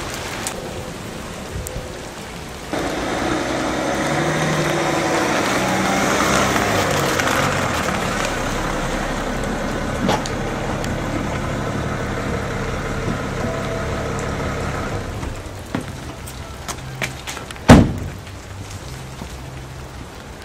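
A car engine running amid the patter of rain. The sound swells about three seconds in and eases back about fifteen seconds in. A single loud thump comes near the end.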